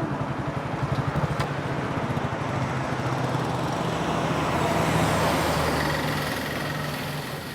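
A motor vehicle's engine and road noise, a rumbling run that grows louder to a peak about two-thirds of the way through, then fades away near the end.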